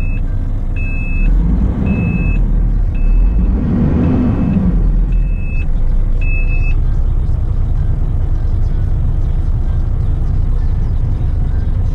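Semi-truck's diesel engine running, heard from inside the cab as a steady low rumble. Over it, a high electronic beep sounds seven times, about once a second, and stops a little past halfway.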